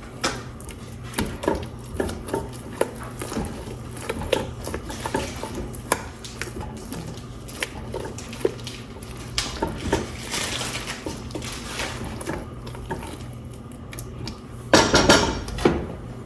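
A utensil stirring mashed potatoes in a pot, with repeated knocks and scrapes against the pot as the milk and butter are worked in. A louder burst of noise lasting about a second comes near the end.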